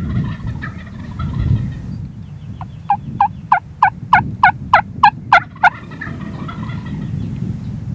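Rio Grande wild turkey gobbling at the start and again near the end. In between comes a run of about ten sharp turkey yelps, about three a second.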